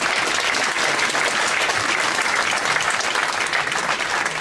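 Audience applauding, a steady spread of many people clapping.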